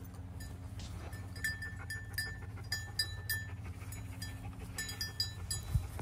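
A small bell tinkling in short, irregular rings, roughly two a second, over a faint steady low hum.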